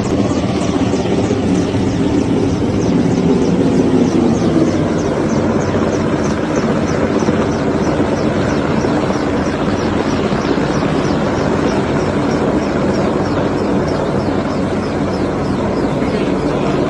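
Helicopter flying, a steady loud rotor and engine noise that swells slightly about four seconds in.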